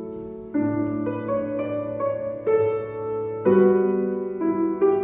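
Slow, gentle piano music: sustained chords, with a new chord or note struck about every half second to a second, each fading until the next.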